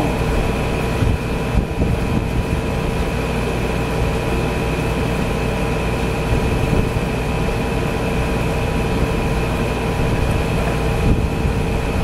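LG window air conditioner running: a steady rush of fan noise with a few constant tones over it.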